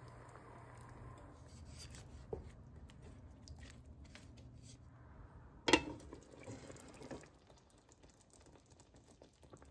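Beaten egg poured into a nonstick pan of simmering bitter melon slices, then stirred with a wooden spatula: wet bubbling and scraping, with one sharp knock of the spatula against the pan a little past halfway. A low steady hum runs under the first half.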